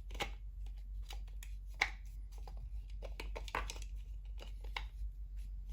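Hands handling a cable and 3D-printed plastic parts: scattered light clicks and rustles.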